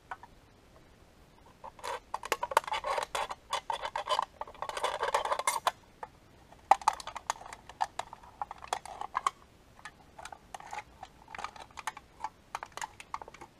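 Thin aluminium drink can being scraped and torn open with the back of a knife blade: bursts of crinkling metal scrapes and sharp clicks, starting a couple of seconds in, densest for a few seconds, then scattered clicks.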